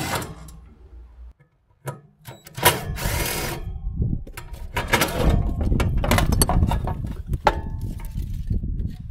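A socket tool loosening the bolts on a welder's cooling-fan mount, with a short bright burst of it about two and a half seconds in. Then comes several seconds of metal rattling, clattering and clicking as the fan motor and its bracket are worked loose from the louvred sheet-metal case.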